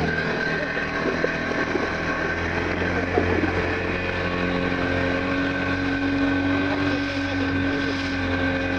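Motorboat engine running steadily at an even pitch while the boat is underway, with the rush of water from its wake.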